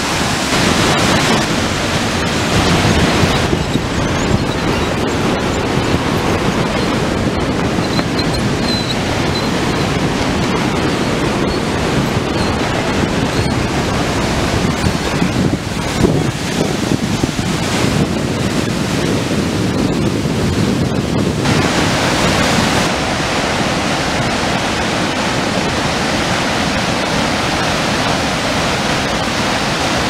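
Steady roar of the Pailón del Diablo waterfall and the white water of the Río Pastaza below it. The sound turns duller a few seconds in and brightens again about two-thirds of the way through.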